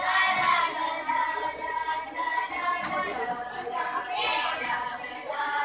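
Music with voices singing a sustained melody.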